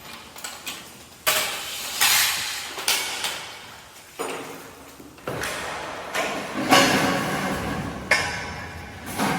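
Irregular metal clanks and knocks of steel parts being handled and struck during dismantling work, each echoing briefly in a large enclosed space.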